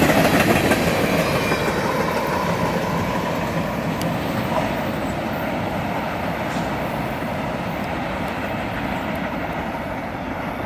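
Freight cars of a manifest train rolling past, with a steady rumble and wheel clatter that slowly fades as the end of the train nears. A faint wheel squeal is heard for a couple of seconds early on.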